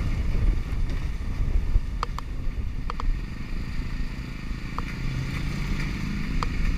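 Motorcycle engine running while riding along a road, under wind buffeting on the microphone, with a few faint brief high blips.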